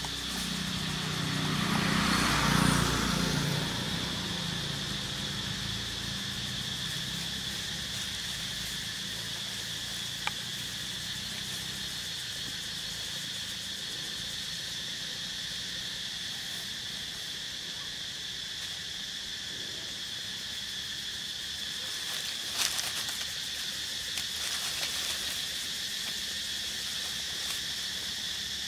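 Steady high, even insect drone over the forest floor. In the first few seconds a louder low rumble swells and fades, and later there is a single sharp click and a few brief knocks.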